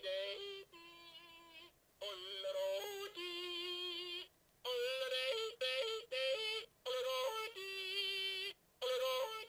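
A woman singing a short jingle-like tune in held notes that jump in steps from pitch to pitch, in several short phrases with brief pauses between them.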